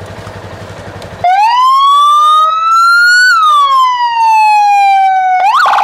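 Police electronic siren sounding one slow wail: it starts about a second in, rises for about two seconds and falls for about two. It then gives a quick chirp and switches into a fast yelp near the end.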